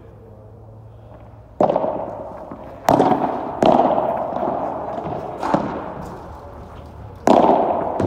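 Padel rally: five sharp pops of racket and ball strikes and bounces, the first about one and a half seconds in, irregularly spaced, each ringing on in the echo of the covered hall.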